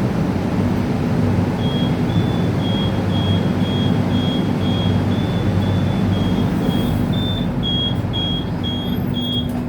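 A KTM Komuter electric train's door warning sounds as a single high beep repeated about twice a second, starting about one and a half seconds in: the door chime is broken. The train's steady low hum runs underneath.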